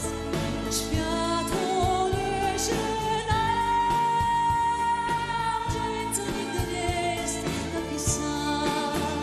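Live pop song: a woman's lead voice sings over a band with drums, holding one long high note from about three seconds in.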